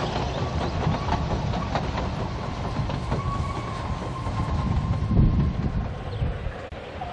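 Narrow-gauge steam railway carriages rolling along the track: a steady rumble with a few clicks of the wheels over rail joints and a thin, steady wheel squeal on the curve.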